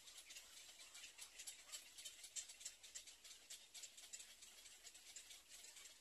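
Near silence: faint outdoor ambience with a dense, irregular high-pitched ticking.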